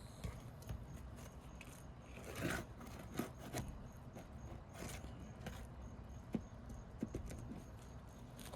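Faint scraping and scattered sharp clicks of a metal pry tool working under asphalt shingles to pull out roofing nails, with a longer scrape a couple of seconds in.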